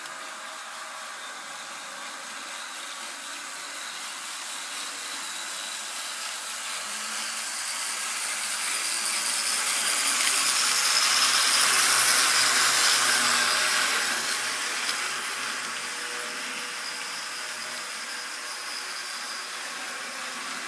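HO scale model diesel locomotive running past on the track. The whir of its motor and the noise of its wheels on the rails swell as it approaches, are loudest about twelve seconds in, then fade as it moves away. A steady hiss lies underneath throughout.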